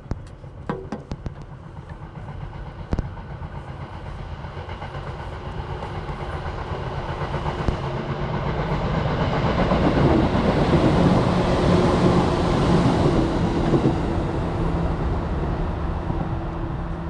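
Electric commuter train approaching and passing close by on the rails: a rumble with a steady low hum that grows over about ten seconds, is loudest a little past the middle, then eases off slightly. A few sharp clicks sound in the first few seconds.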